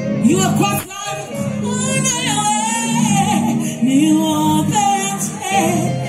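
A woman singing live into a microphone over amplified band music, with long held notes and sliding pitch. The sound dips briefly about a second in.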